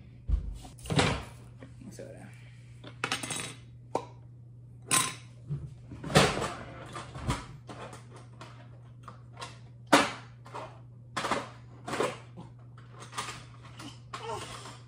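Spoons and dishes clinking and knocking irregularly as baking ingredients are measured into a mixing bowl, with a steady low hum underneath.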